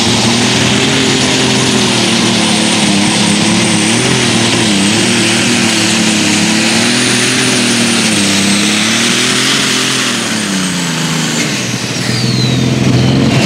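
A John Deere light super stock pulling tractor's turbocharged diesel engine running hard under load, with a high whine riding over it. Near the end the engine comes off power and the whine slides down in pitch.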